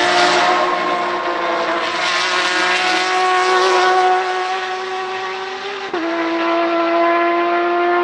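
Porsche 911 RSR (991.2) race car's 4.0-litre flat-six running on an open exhaust under hard acceleration as it passes and pulls away. The pitch climbs steadily, drops sharply at an upshift about six seconds in, then climbs again.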